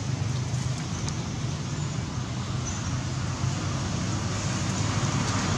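Steady low rumble with an even hiss: outdoor background noise.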